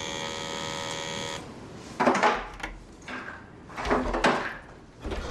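An electric doorbell buzzes for about a second and a half and cuts off. It is followed by several clunks and knocks, like a door being unlocked and opened.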